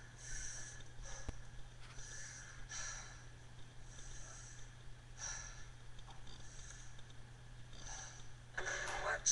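A person breathing heavily near a webcam microphone, in short hissy breaths at uneven intervals, over a steady low electrical hum.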